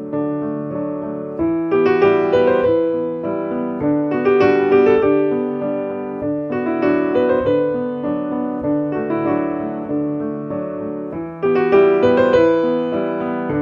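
Background piano music: a slow melody over sustained chords, in phrases that swell louder about a second and a half in, around four seconds in, and again near the end.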